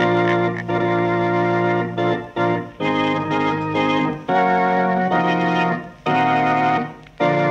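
Organ playing a phrase of held chords, broken by short breaks between them: the radio drama's closing theme music.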